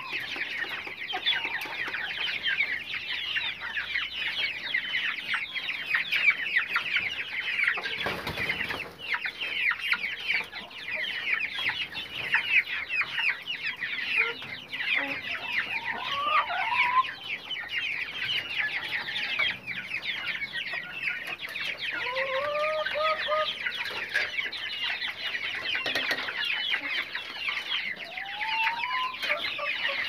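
Caged chickens: many young birds peeping constantly and shrilly, with a few longer, lower calls from hens now and then.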